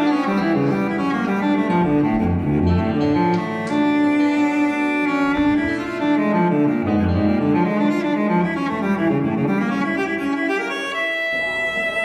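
Dramatic background score of bowed strings, low cello and double bass, with some piano, playing sustained melodic notes. Near the end a steady electronic phone ringtone comes in.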